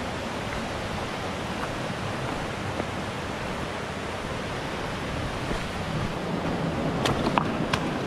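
Steady rush of mountain water, with a few short sharp clicks near the end.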